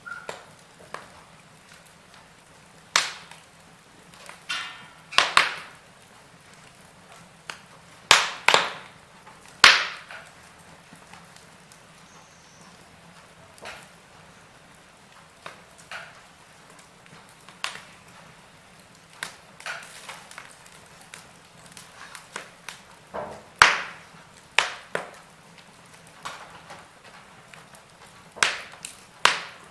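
Wood fire burning in a fireplace, crackling with irregular sharp snaps and pops over a faint steady hiss; the loudest cracks come in clusters about 3, 5, 8 to 10, 23 and 29 seconds in.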